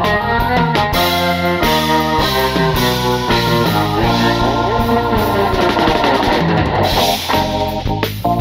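Instrumental background music with held chords that change every half second or so, thinning out near the end.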